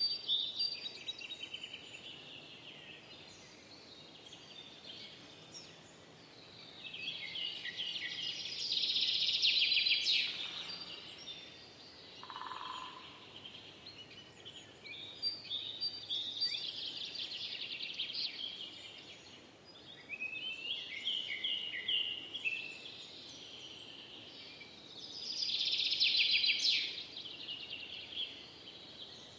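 Forest songbirds singing: rapid, high-pitched chattering and trilling song phrases that come and go, the loudest about a third of the way in and again near the end, with one short lower whistle near the middle.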